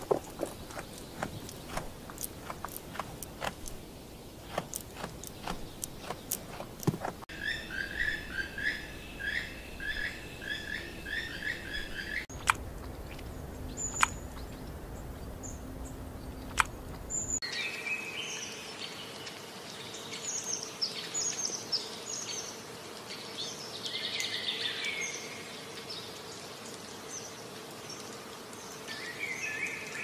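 Jungle ambience spliced together from several recordings that change abruptly every five seconds or so: first a run of sharp clicks and taps, then fast repeated chirping calls, then a few sharp clicks over a low hum. The second half is a longer stretch of varied bird calls and chirps.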